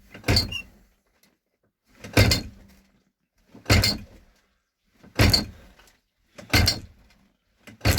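Brake pedal of a Cat 420 backhoe pumped over and over: six short clunks, about one every second and a half. The pumping pushes brake fluid out through a leaking brake line so the leak can be found.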